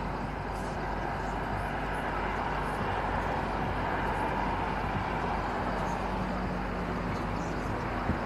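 Steady outdoor noise, a dense even hiss, with a faint low hum underneath.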